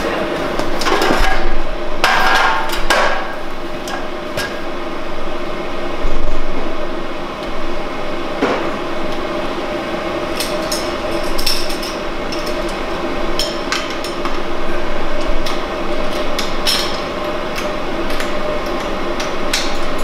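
Irregular metal clanks and knocks from the fittings of a column still being handled and fitted together as the gin basket and its vessel go on top, a few in quick clusters, over a steady hum.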